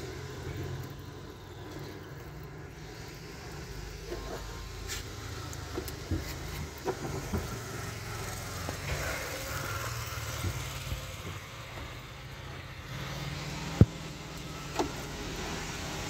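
Hands handling plastic drain hoses and fittings under a top-load washing machine: scattered clicks and knocks, with one sharp knock near the end, over a low steady hum.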